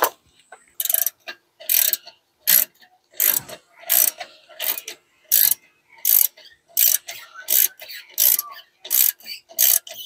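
Hand ratchet clicking on each back-swing as the brake caliper's 7 mm Allen bolts are unscrewed, in a steady rhythm of about fourteen short rattling bursts, roughly one and a half a second.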